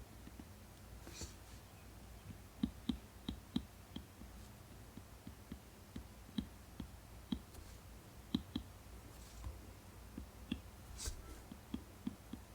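Apple Pencil tip tapping on an iPad screen while sketching: light, sharp clicks at an irregular pace, with a couple of soft scratchy strokes of the tip dragged across the screen.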